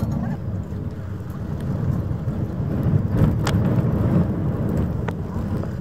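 Steady low rumble of outdoor harbourside ambience, with a few faint clicks about three and a half and five seconds in.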